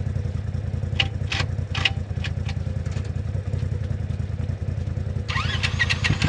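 Side-by-side UTV engine idling steadily, with a few sharp clacks between about one and two and a half seconds in. Near the end, rising squeaky sounds come in over the idle.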